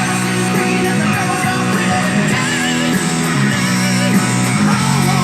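Rock music with guitar, played from a radio station through a mini hi-fi stereo system's speakers.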